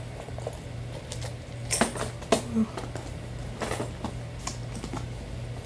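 Handling of a fishing tackle backpack: scattered light clicks and rustles of fabric, zipper pulls and plastic, a few sharper ones in the middle, over a steady low hum.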